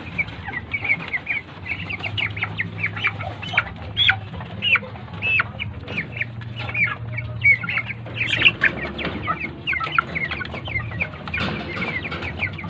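A group of caged chickens cheeping and clucking: many short, high calls, some falling in pitch, overlapping one another.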